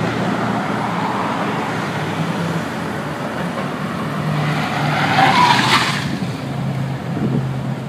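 Road traffic noise, with a silver Hyundai Elantra Coupe driving close past about five seconds in, swelling to the loudest point and then easing off.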